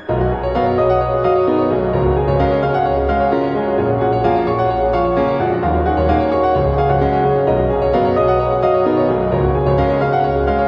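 Background music with piano and a steady bass line, starting abruptly.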